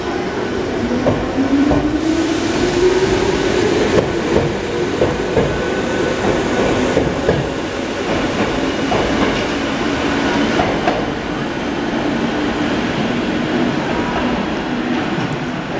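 Kotoden electric train pulling along the platform: its motor whine rises steadily in pitch over the first several seconds, with a run of wheel clacks over rail joints. The whine then settles into a steadier, lower hum.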